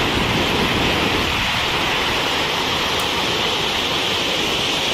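Muddy floodwater rushing in a torrent over and beside a road, swollen by days of heavy rain: a loud, steady rush of water.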